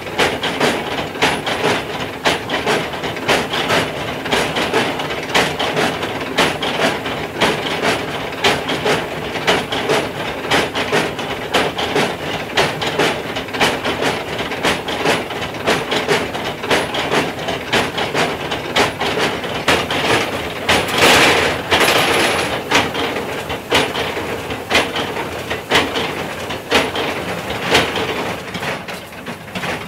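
Old belt-driven mill machinery running, its iron shafts and rods knocking in a steady, rhythmic clatter that sounds like a train going along the rails. It gets a little louder about two-thirds of the way through.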